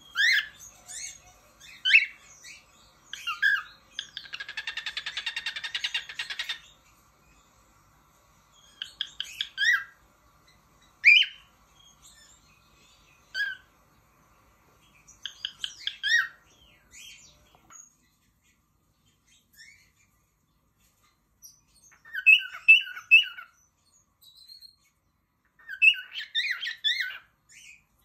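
Cockatiel whistling and chirping in short bursts, with pauses between them. About four seconds in there are two seconds of rapid pulsed chatter, and near the end three quick repeated notes.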